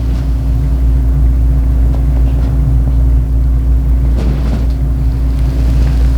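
Steady low mechanical rumble with a constant hum, with a few faint clicks about four seconds in.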